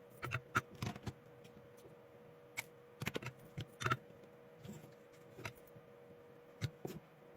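Scattered light clicks and taps from hands handling a power-tool lithium battery pack and its wiring during reassembly, over a faint steady hum.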